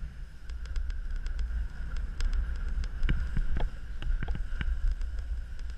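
Wind buffeting the microphone of a skier's action camera during a descent over snow, a steady low rumble, with a scatter of sharp clicks and crunches from about half a second in.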